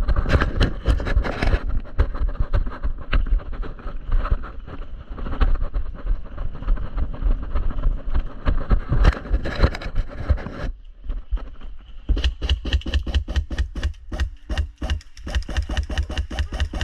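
Running footsteps and gear rattling close to the microphone, with a dense jumble of knocks and scuffs; after a short lull near the middle, an even run of footfalls, about four or five a second.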